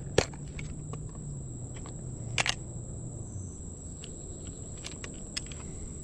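Sharp plastic clicks and snaps from clear plastic tackle boxes being handled and opened: one loud click just after the start and a double click about two and a half seconds in, with fainter ticks between. A steady high-pitched insect buzz runs underneath.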